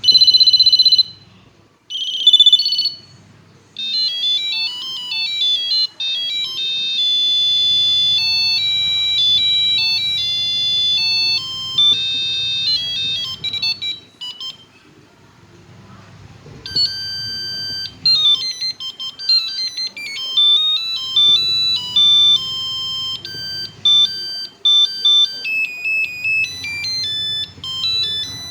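Ericsson mobile phone ringtones: two short beep tones, then a melody of quick high electronic beeps for about ten seconds, a brief pause, and another fast beeping melody.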